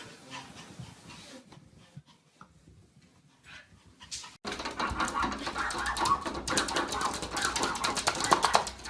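Dog sounds: faint at first, then about halfway through an abrupt jump to louder, busier sound with many rapid clicks.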